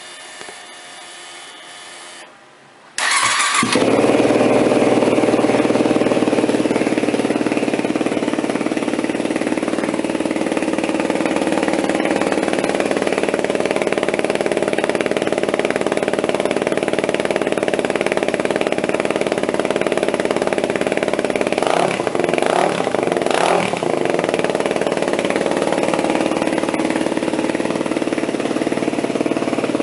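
Yamaha WR250X's 250 cc single-cylinder four-stroke engine, fitted with a Delta Barrel 4 aftermarket silencer, starting after a short whine of about two seconds and then idling steadily. It is revved briefly a couple of times about two-thirds of the way through.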